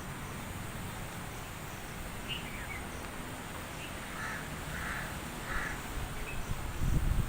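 Birds calling outdoors: a few short high chirps, then three harsh, raspy calls a little over half a second apart, caw-like. A steady low rumble runs underneath, and a low thump comes near the end.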